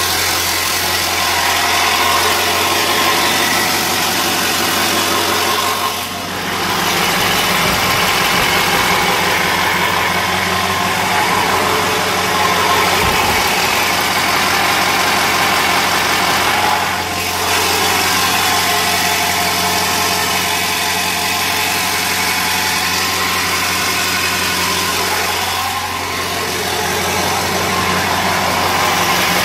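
A 2000 Ford 7.3L Power Stroke turbodiesel V8 idling rough, the sound of the idle fault the owner is diagnosing. Its level sags briefly three times.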